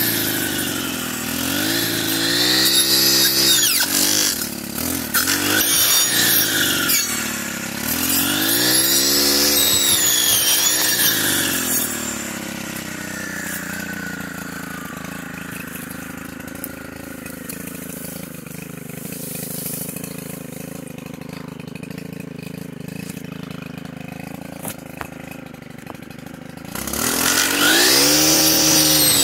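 Stihl FS 131 brush cutter's 4-MIX engine revving up and down as its circular saw blade cuts through brush, then dropping to a steady idle for about fifteen seconds, and revving back up high near the end.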